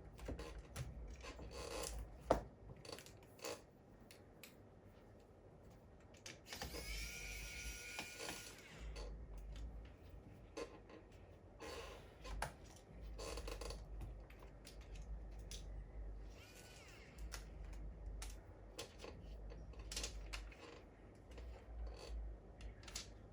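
Small clicks and taps of tools and plastic parts while a laptop is handled and taken apart, with a brief high whine about seven seconds in.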